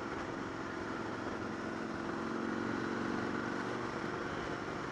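Motorcycle engine running at steady revs while riding, over a steady rush of noise, getting a little louder around the middle.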